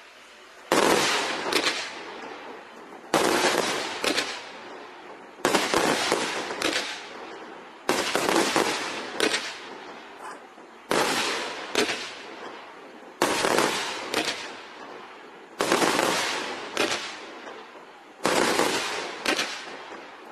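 Consumer multi-shot firework cake firing volleys of aerial shells: eight sharp bangs about two and a half seconds apart, each followed by about a second of crackling that fades out.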